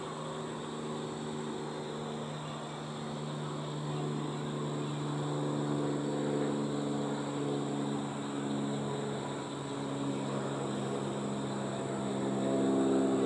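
A motor engine droning steadily, its pitch shifting slightly and growing a little louder near the end.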